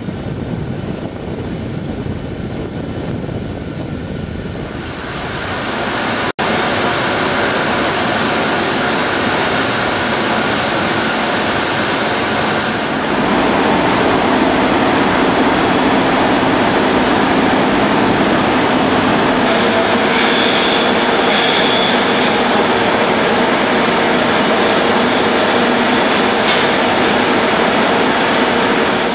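Loud, steady roar of heavy industrial machinery on an offshore oil platform, with a brief dropout about six seconds in. About thirteen seconds in it steps up and grows fuller, the running of the cementing unit's engines and pumps.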